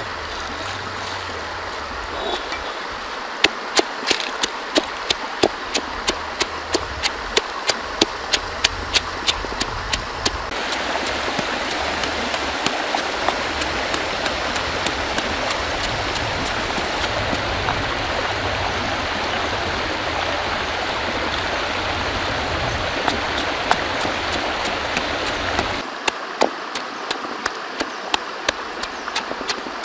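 Stone pestle knocking into a stone mortar as red chillies are pounded, in a steady rhythm of about two strokes a second, over the constant rush of a shallow stream running over rocks. Through the middle the stream is louder and the knocks few, and near the end the knocks come back.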